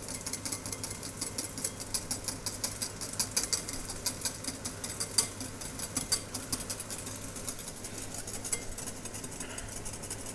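Wire whisk beating a carbonara egg sauce in a glass bowl set over a pan of hot water, the wires ticking rapidly against the glass as the sauce thickens. A steady low hum runs underneath.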